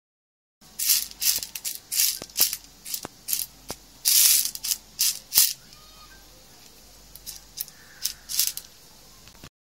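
Dry popcorn maize kernels rattling and rustling in a metal plate as a hand stirs and sifts through them, in short irregular bursts that come thickest in the first half and thin out after about six seconds.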